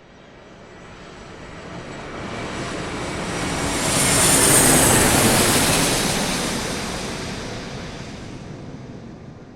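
An airplane flying past: its noise swells from faint to loudest about four and a half seconds in, then fades away.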